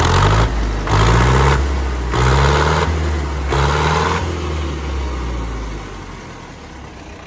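Diesel tractor engine, freshly overhauled, revved four times about a second apart, each rev rising in pitch, then settling back to a steady idle.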